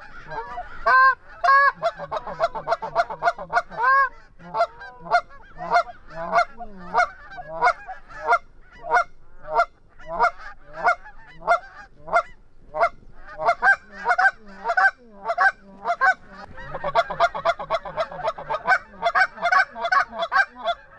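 Canada goose honking and clucking, many loud calls in quick succession, about two or three a second without a break.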